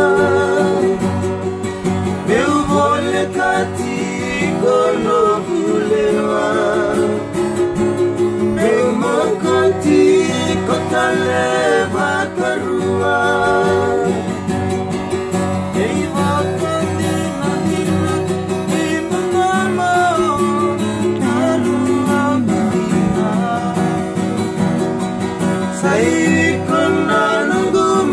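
Acoustic guitar played as accompaniment to young men singing a Fijian song together.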